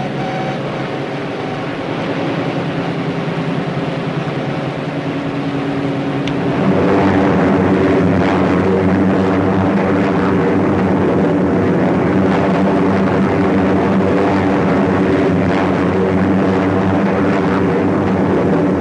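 Propeller engines droning steadily with a fast beat, growing louder and higher in pitch about six and a half seconds in.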